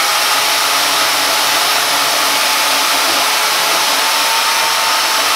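Bauer, Milwaukee and DeWalt portable bandsaws running together, their blades cutting through square metal tubing: a loud, steady whir with a faint wavering tone.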